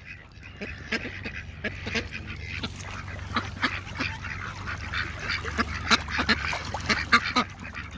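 A flock of ducks gathered to be fed, quacking and calling with many short calls overlapping.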